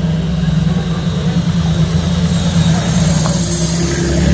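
Engine of a vintage open-top racing car running at low speed, a steady low rumble that gets louder near the end as the car comes close.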